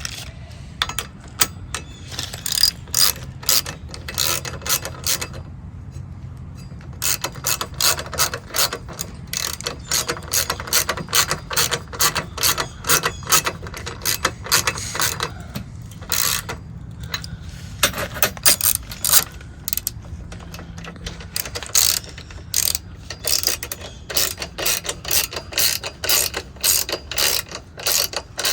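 Hand socket ratchet wrench being cranked, its pawl clicking rapidly in runs with short pauses, as bolts for the running-board brackets are driven.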